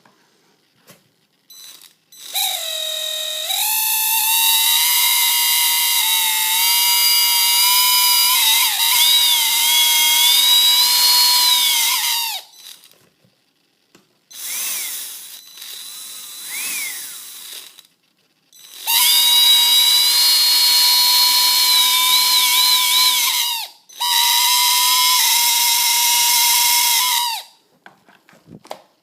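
Traxxas Summit RC truck's electric motor run up in four throttle bursts of several seconds each, a loud high whine whose pitch climbs early in the first burst and wobbles at times. This is the motor growl that the owner cured with WD-40 on the bushings.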